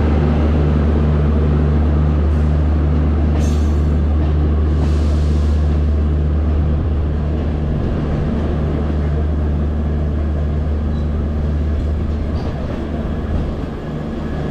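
Train running on the rails: a steady low hum under broad rolling noise. The hum eases a little about seven seconds in.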